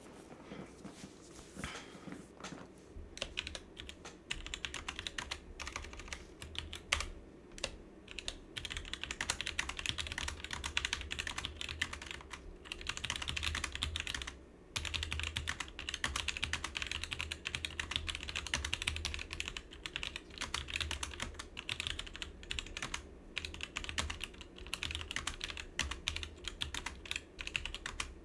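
Fast typing on a Roccat Vulcan 122 AIMO low-profile mechanical keyboard with Roccat's own Titan tactile switches: a rapid, steady clatter of key clicks. It starts as scattered presses and picks up to continuous typing a few seconds in, with a couple of brief pauses.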